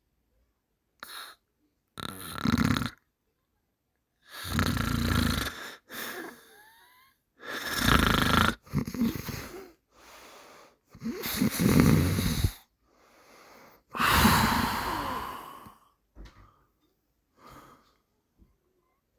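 A person snoring: five snores, one every three seconds or so, each lasting about a second, with fainter breaths in between.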